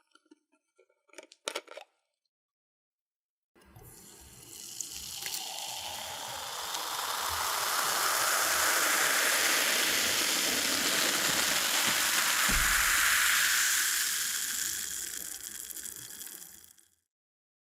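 Cola being poured, a fizzing, hissing stream of liquid that starts about three and a half seconds in, builds over a few seconds, holds steady and then tapers off near the end. A few faint clicks come before the pour.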